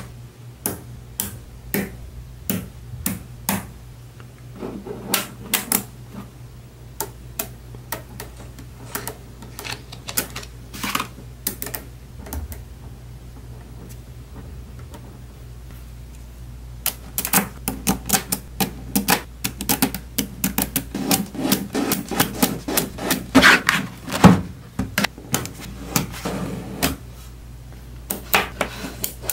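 Small Neocube neodymium magnet balls clicking and snapping together as they are pressed into place by hand. The clicks come scattered at first, then a dense run of them falls in the second half, over a low steady hum.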